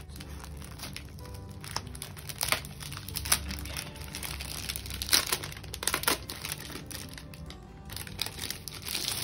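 Clear plastic packaging sleeve crinkling in irregular crackles as it is peeled back and pulled off a zipper pouch, over background music.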